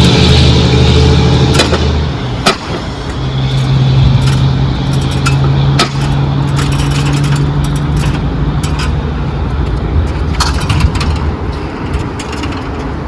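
A motor running with a steady low drone that shifts pitch twice in the first few seconds, with a few sharp clicks.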